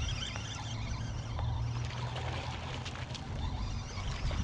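Water splashing and trickling as a hooked speckled trout fights on the line near the surface, over a steady low rumble of wind on the microphone.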